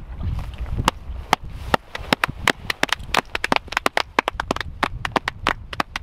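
A few people clapping by hand: sharp, uneven claps several times a second, starting about a second in, with wind rumbling on the microphone at the start.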